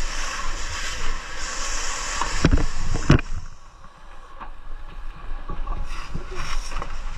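Vehicle rumble with rushing noise, and two heavy low thumps about two and a half and three seconds in, after which it briefly goes quieter.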